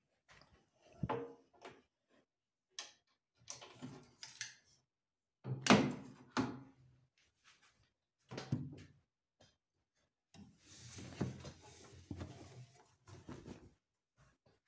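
Clunks and clacks from handling an Electrolux top-loading washing machine as its drum hatch doors are opened, the loudest about six seconds in. This is followed by a few seconds of rustling as laundry is pulled out of the drum.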